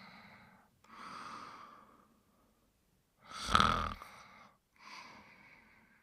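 A sleeping character snoring in slow breaths with short pauses between them: one breath at the start, another about a second in, a much louder snore about three and a half seconds in, and a softer one about five seconds in.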